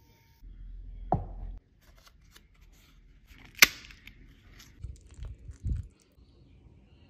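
A crisp home-fried tortilla chip snapped in half by hand: one sharp, loud crack a little past the middle. Before it there is a low thud about a second in, and soft low thuds near the end.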